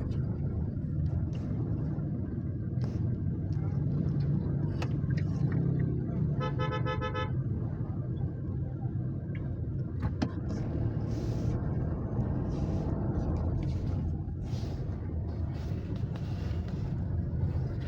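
Toyota Innova engine running with steady road noise while driving, and a car horn sounding briefly about six and a half seconds in.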